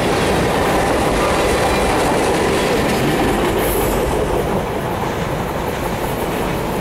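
Boxcars at the rear of a mixed freight train rolling past on steel wheels. About four seconds in, the last car clears and the sound thins and begins to fade as the train moves off.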